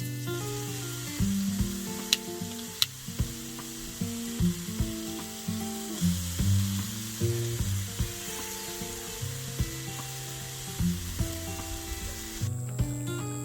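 Steady sizzling hiss with scattered sharp crackles, over soft background music with a slow low melody.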